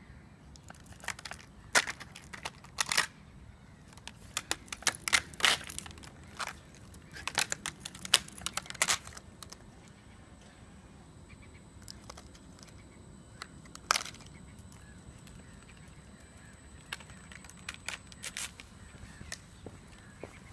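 Short crackling, crinkling clicks from a small dog chewing and mouthing a white scrap held in its mouth. The clicks come thick for the first nine seconds or so, then only now and then.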